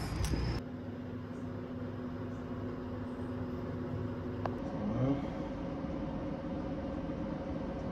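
A steady low hum with two faint held tones under it, and a brief rising glide about five seconds in.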